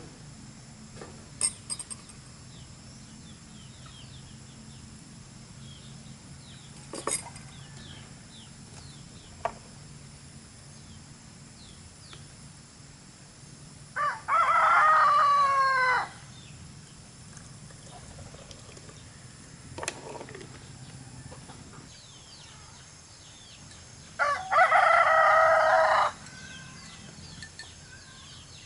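A rooster crowing twice, each crow about two seconds long and some ten seconds apart. A few short faint clicks or knocks come before the crows.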